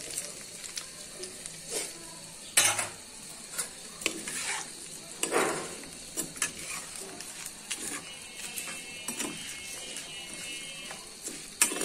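Metal spatula scraping and knocking against a frying pan while diced pumpkin and spiny gourd are turned in oil, in irregular strokes every second or so. Under it is a faint steady frying hiss: the flame is very low, so the vegetables went in without a loud sizzle.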